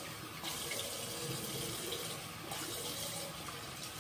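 Bathroom tap running into a sink: a steady rush of water.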